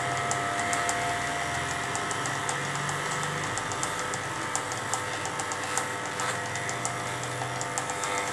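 Electric pet hair clippers running steadily as they shave through a dog's thick coat.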